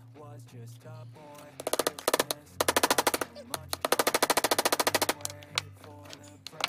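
Hammer tapping wire cable staples into a wooden board to pin down cotton rope: rapid, even taps about ten a second, a short run about a second and a half in and a longer one from about two and a half to five seconds, over background music.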